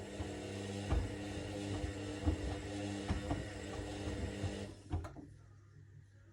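Washing machine drum turning with soccer balls tumbling and thumping irregularly inside, over a steady motor hum. About four and a half seconds in the drive stops and the thumping ceases, leaving a faint hum.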